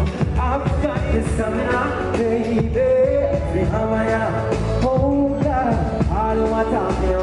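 Male voice singing dancehall into a handheld microphone over a DJ's backing track with heavy bass, heard loud through the concert sound system.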